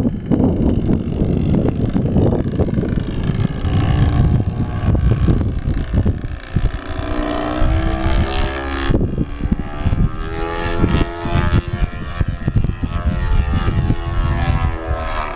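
A radio-controlled model airplane's motor drones from about six seconds in, its pitch rising and falling as the plane passes overhead. Wind rumbles on the microphone throughout.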